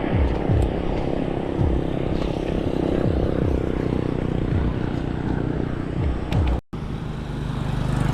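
Wind rushing over an action camera's microphone while riding a bicycle, with low buffeting rumble. It cuts out for an instant near the end, and a steady low engine hum follows.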